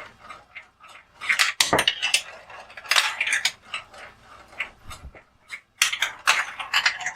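Real glass marbles clacking and rattling down a plastic building-block marble run, in three bursts of quick clicks with lighter rattling between.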